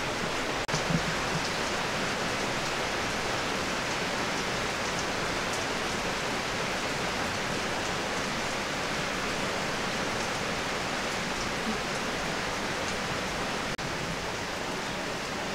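Steady, even hiss-like noise with no distinct events. It drops out for an instant just under a second in and again near the end.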